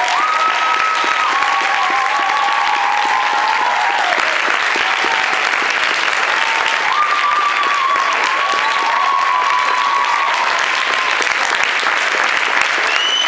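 Theatre audience applauding steadily after a dance performance, with shrill held whistles from the crowd over the clapping.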